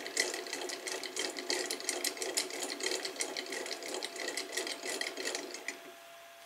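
Rapid, uneven mechanical clicking and rattling that stops abruptly about five and a half seconds in.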